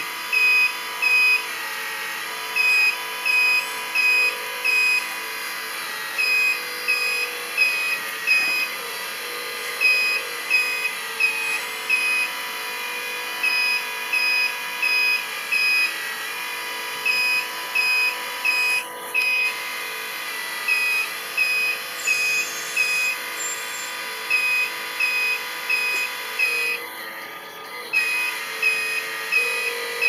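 Reversing-style warning beeper of a radio-controlled construction model, beeping two to three times a second in runs with short pauses, over the steady electric whine of the models' motors and hydraulic pumps.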